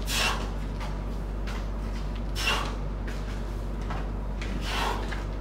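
Three short, hissing breaths, about two and a half seconds apart, from a man doing barbell squats, in time with his reps. Under them is a steady low hum.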